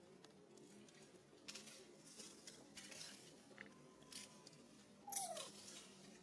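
Scuffling and dry-leaf rustling as an adult macaque wrestles a baby macaque pinned on the steps. About five seconds in, a short squeal falls in pitch: the baby crying out.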